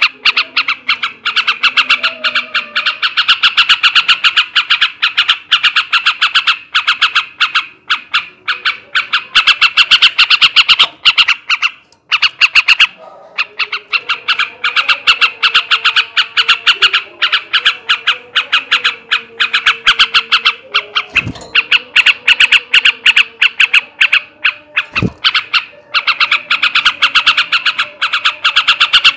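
Male yellow-vented bulbul (trucukan) singing a loud, fast chattering trill in long unbroken runs, with a short pause about twelve seconds in.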